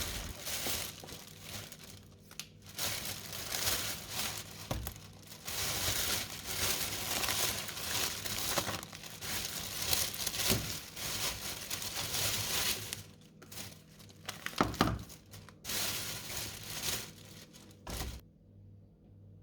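Crinkling and rustling in long stretches broken by short pauses, stopping near the end.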